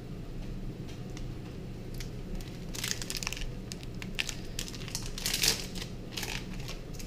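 Foil booster-pack wrappers crinkling and tearing as Pokémon card packs are opened, in irregular crackles that grow busier from about three seconds in.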